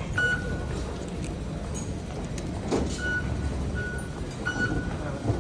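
Steady low rumble of a vehicle engine or traffic, with short high electronic beeps: one at the start, then several in a row from about three seconds in.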